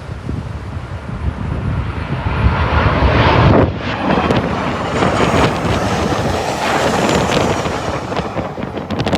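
Southwest Airlines Boeing 737 jet flying low overhead on landing approach. Its engine noise swells over about two seconds, peaks a third of the way in and stays loud with a faint high whine, under heavy wind buffeting on the microphone.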